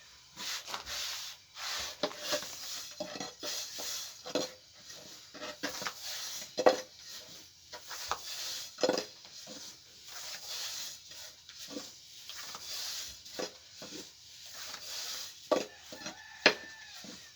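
Irregular knocks, taps and scraping from objects being handled, with a few sharper knocks now and then.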